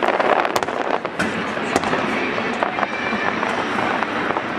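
Aerial fireworks going off in rapid succession: many sharp bangs and crackles over a steady wash of noise.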